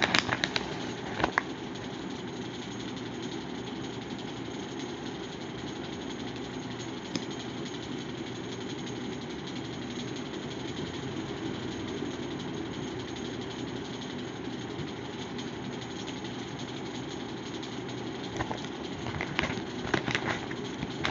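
Electric fan running steadily. A few light knocks and clicks come in the first second or so and again near the end.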